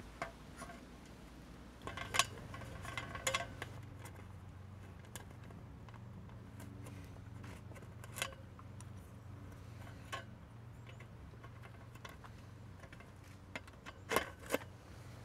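Scattered small clicks and light knocks of hands working electrical wires, plastic wire nuts and a lantern fitting at the top of an aluminum post. There is a cluster about two seconds in and two sharper knocks near the end.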